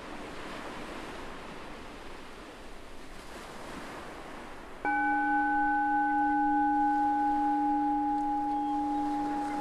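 Ocean waves washing on a beach, then a meditation bell struck once about five seconds in, ringing on with a low tone and several higher tones, the highest fading first.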